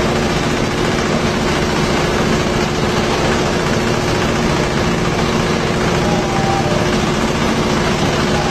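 Coconut husk-peeling machine running steadily: a loud, even mechanical noise with a constant hum through it.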